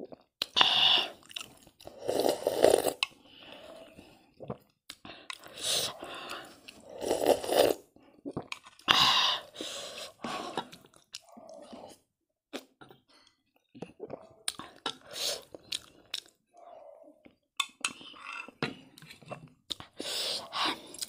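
Close-up eating sounds of hot noodle soup (thukpa): a string of loud sips and slurps from a spoon at a steel bowl in the first half, with chewing and lip smacks between them and quieter smacks and clicks later.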